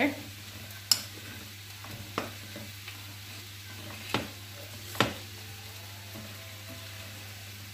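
Vegetables sautéing in a frying pan, a steady sizzle, with four sharp knocks about one, two, four and five seconds in as dough is mixed by hand in a bowl.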